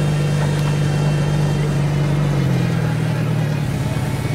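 Boat engine running steadily, its pitch dropping a little about two and a half seconds in.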